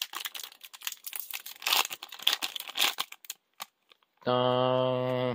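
Foil booster pack wrapper crinkling and tearing as it is pulled open, dense crackling for about three seconds. Near the end, a louder steady low hum holds for about a second.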